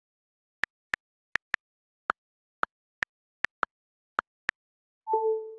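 About eleven sharp, short clicks at uneven spacing, some in quick pairs, over dead silence. Near the end, a short electronic beep of two notes, a higher one and a lower one that holds on.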